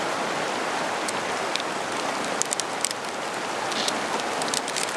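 Clear plastic liner being slit with a knife and peeled off a new fly rod's cork grip: scattered crackling clicks, most of them in the second half, over the steady rush of a stream.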